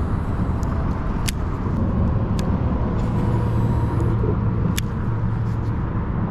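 Steady low rumble of road traffic, with a low hum that swells about halfway through. Three sharp clicks stand out over it.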